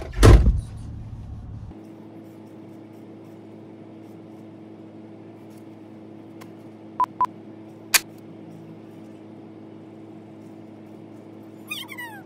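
A car door shuts with a thud, followed by a steady low hum inside the car. Two short beeps sound about seven seconds in, with a click a moment later, and a quick run of falling chirps comes near the end.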